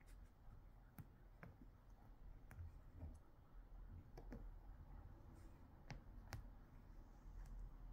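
Near silence with a few faint, sharp clicks at irregular intervals.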